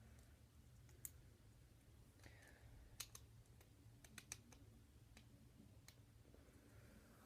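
Faint, irregular clicks of plastic Lego bricks being handled and pressed together, about ten sharp ticks scattered through, over a low steady hum.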